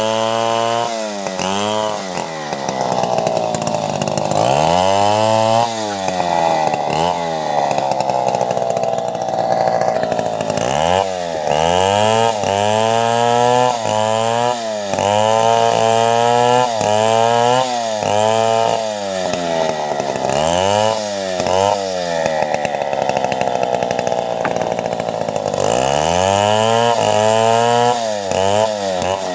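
Chainsaw ripping a log lengthwise into planks. The engine revs up and drops back again and again, its pitch swinging high and low every second or two, held high for a few seconds twice.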